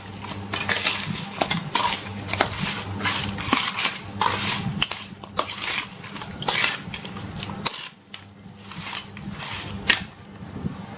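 Kitchen utensils scraping and clattering against a metal cooking pan in quick, irregular strokes, over a steady low hum, with a short lull near the end.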